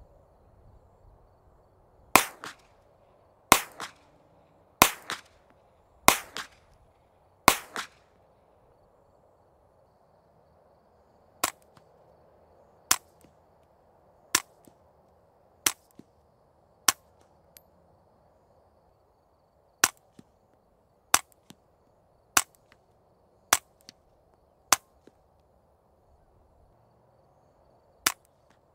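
Ruger PC Carbine 9mm firing a string of five unsuppressed shots about a second and a half apart, each sharp and followed by ringing echo. After a pause come two strings of five shots through a CGS Group Kraken 9 suppressor, each shot shorter with little ringing after it. One more suppressed shot comes near the end.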